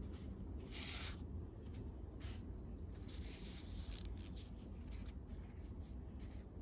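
Soft rustling and rubbing of lavender stems being handled, in a few short scratchy strokes over a low steady rumble.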